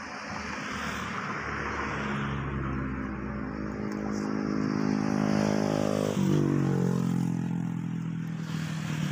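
A motor vehicle drives past on the road close by: its engine note builds up over several seconds, then drops in pitch as it goes by, about six seconds in.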